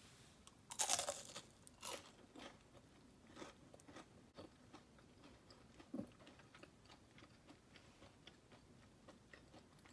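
A person biting into a crisp deep-fried fish spring roll and chewing it. There is a loud crunch about a second in, followed by smaller scattered crunches as the fried wrapper breaks up.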